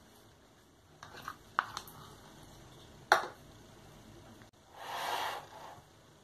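A spoon clicking and tapping against a bowl and plate while tuna filling is scooped and spread onto halved bread rolls, with a few light clicks and one sharper one about three seconds in. A soft rustle lasts about a second near the end.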